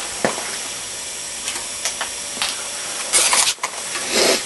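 Steady hiss with scattered rustles and knocks from a handheld camcorder being moved and handled around the belt grinder; a louder rustle comes about three seconds in.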